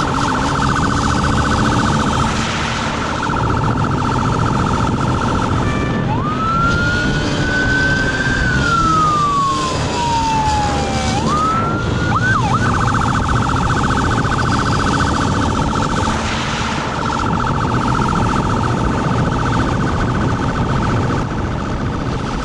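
Police motorcycle siren sounding a fast warble. About six seconds in it switches to a slow wail that rises, then falls over several seconds, followed by a few quick whoops before the fast warble resumes. It sounds over the low rumble of the motorcycle riding at speed.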